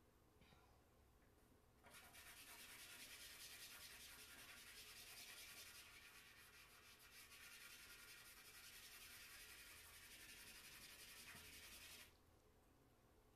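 A hand rubbing charcoal into drawing paper, blending the shading of a portrait: a faint, steady dry hiss that starts about two seconds in and stops shortly before the end.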